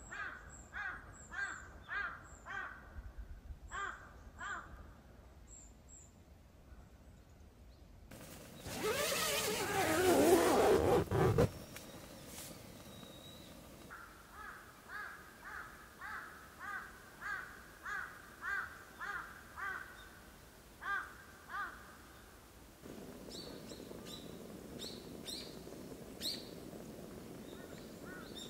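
Crows cawing in long series of repeated calls, about two a second, with a pause in between. A louder rushing sound swells for about three seconds in the middle, and a steady low hiss comes in near the end.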